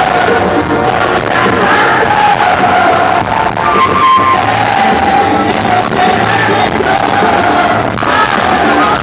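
Live band music with singing, played loud through a theatre's sound system.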